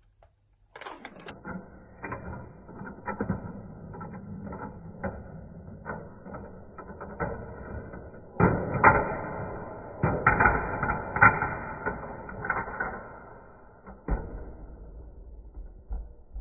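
Marbles set off about a second in and roll along a plastic Gravitrax marble run track, a continuous rolling rattle broken by frequent clicks and knocks as they drop through the pieces. It grows busier and louder past the halfway point, then thins out near the end.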